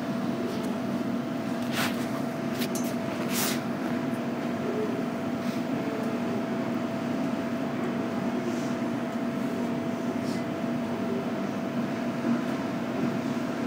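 JR Kyushu 815 series electric train standing still: the steady hum of its onboard equipment, with a few short hisses about two to three and a half seconds in.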